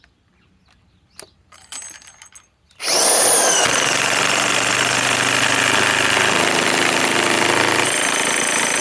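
A few light knocks, then about three seconds in a DeWalt DCF961 cordless high-torque 1/2-inch impact wrench starts hammering at full speed and keeps going steadily.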